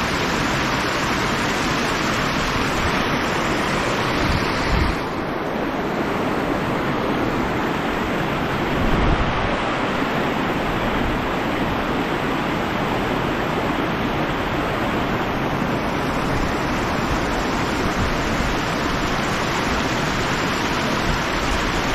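Steady rushing of a river's current running over a shallow, rippled stretch, with brief low rumbles of wind buffeting the microphone about five and nine seconds in.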